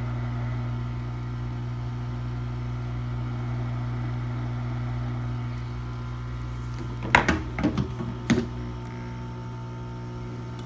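Hot-air rework station blowing with a steady low hum, set to about 150 degrees to soften glue around a laptop DC jack. About two-thirds of the way through, a short burst of sharp clicks and small rattles.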